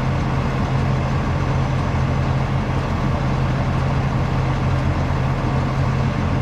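Engine running steadily, a constant low hum with no change in speed.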